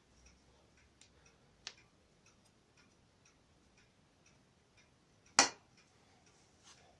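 Faint, even ticking at about three ticks a second, with a sharp click about a second and a half in and one loud knock about five and a half seconds in.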